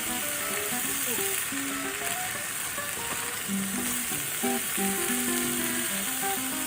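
Food frying with a steady hiss of sizzling, under background music of short, separate notes.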